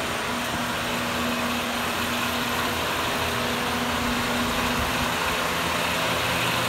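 Several large electric barn fans running: a steady whir with a low hum underneath.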